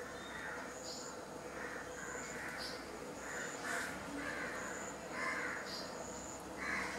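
Birds calling outdoors: a run of about nine short, harsh calls, one every half second to a second, with brief high chirps between them.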